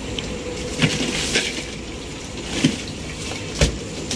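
Crushed ice crunching and clinking as a hand digs through whole fish packed in ice in a chest freezer, with a few sharp knocks over a steady low hum.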